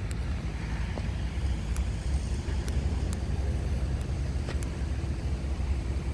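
Low, steady rumble of background noise with a few faint clicks scattered through it.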